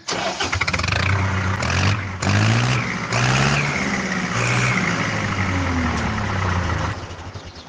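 An engine revving, its pitch rising and falling in several swells with brief dips between them, then fading out near the end.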